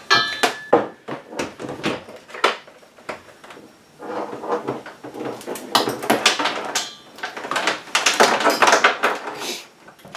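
Irregular knocks, clicks and rustling of hands handling equipment as a bench oscilloscope is set down and its probe cables are unwound, busiest about four to six seconds in and again near the end.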